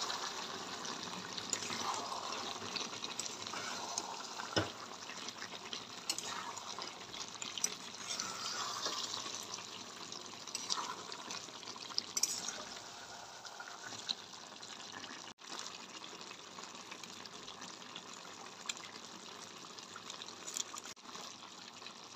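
Chicken simmering and sizzling in gravy in a metal kadai, a steady hiss with bubbling, with occasional short clinks and scrapes of a metal spatula against the pan.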